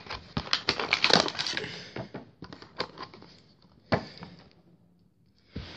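Plastic and cardboard toy packaging being crinkled and torn open: a dense run of crackles for the first couple of seconds, thinning out to a few separate clicks.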